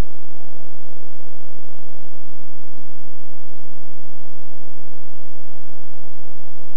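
Steady electrical hum and hiss from an old taped TV broadcast soundtrack, with no clear event standing out.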